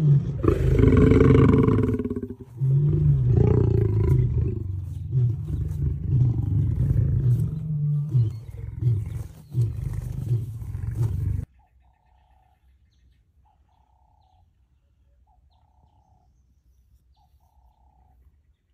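A lion roaring: one long, loud roar in the first two seconds, then a run of shorter grunting roars, which cuts off suddenly about eleven seconds in. After that, a bird's short calls repeat faintly about every second and a half.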